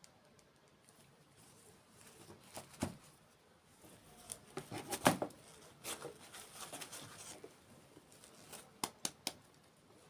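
Hands unboxing miniature toys: short rustles of packaging and scattered sharp clicks and taps, busiest in the middle, then three quick sharp clicks near the end.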